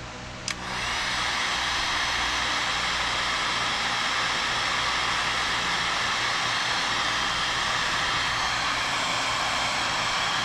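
A click as a heat gun is switched on about half a second in, then its fan blowing steadily with a loud, even hiss.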